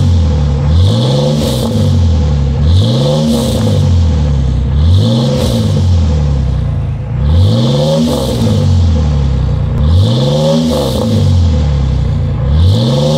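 Ford Mustang 4.0-litre V6 through a true dual exhaust with no H-pipe or X-pipe, revved again and again from idle: about five quick revs, each rising and falling back, roughly every two seconds, with a sixth starting near the end.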